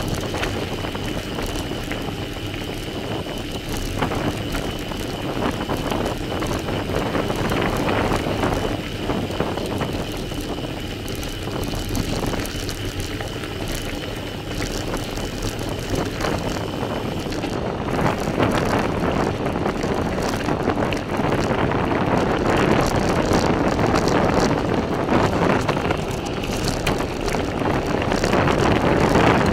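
Bicycle tyres crunching over a loose gravel track, with the bike and camera rattling and wind on the microphone; louder from about two-thirds of the way through.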